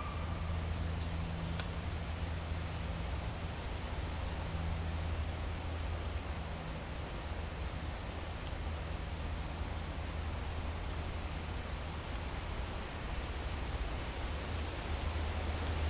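Wind rustling through autumn trees, with the steady low drone of a propeller aircraft far overhead beneath it. Faint short high chirps come every few seconds.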